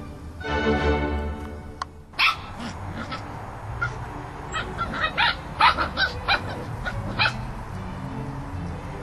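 Short, high-pitched yips and barks from poodle puppies, about a dozen of them over five seconds, after organ music stops about two seconds in.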